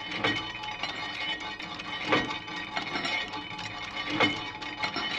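Stamping machine punching the maker's mark into steel files: sharp metal-on-metal strikes about every two seconds, with lighter clicks and clinks between them.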